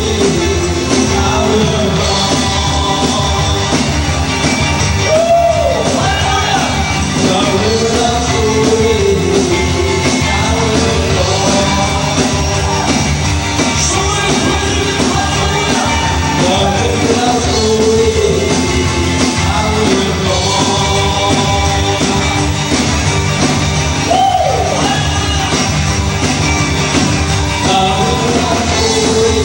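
Live band music with a lead voice singing over it, the vocal line sliding up and down in pitch.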